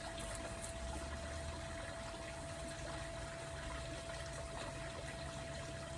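Steady background noise with a faint constant hum; no distinct event stands out.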